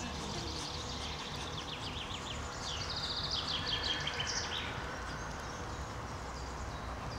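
A songbird singing a run of quick, repeated descending chirps through the first half, over steady low outdoor background noise.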